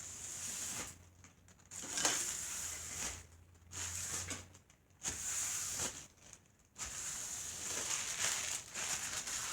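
Packaging crinkling and rustling as it is handled, in irregular bursts with short pauses between them.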